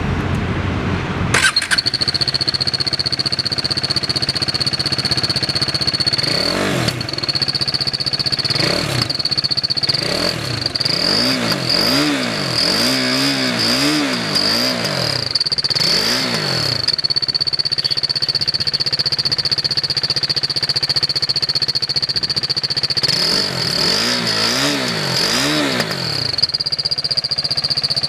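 Motorcycle engine, likely a KTM RC 390's single-cylinder, running with an aftermarket turbo whistle pushed into the exhaust, which gives a steady high whistle over the engine. The throttle is blipped again and again, so the engine note rises and falls, with a quick run of revs in the middle and another near the end.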